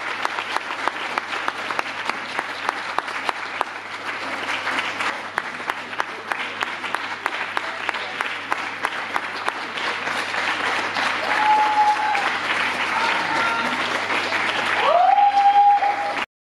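Audience applauding, a dense run of hand claps. Near the end a few short, high held tones rise above the clapping, one gliding up into a held note, before the sound cuts off suddenly.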